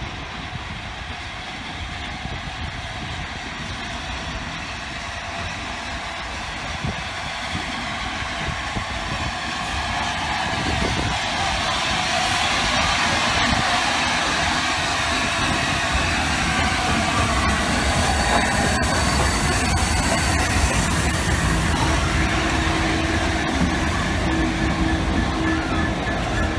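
LNER A4 Pacific steam locomotive 60009 approaching slowly and then passing close by. It grows steadily louder from about ten seconds in as it draws level. Near the end the Class 66 diesel coupled behind its tender goes past, and a steady hum comes in.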